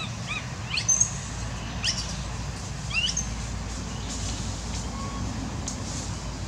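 A few short, high-pitched chirping calls, each a quick upward sweep, coming singly or in pairs during the first three seconds over a steady low rumble.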